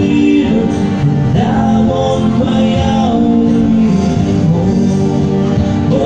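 A man singing live while playing an acoustic guitar, with held sung notes that slide between pitches over the guitar accompaniment.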